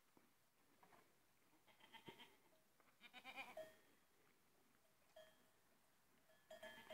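Goats bleating faintly: short, wavering bleats, the clearest about three seconds in, with a faint knock a little before it.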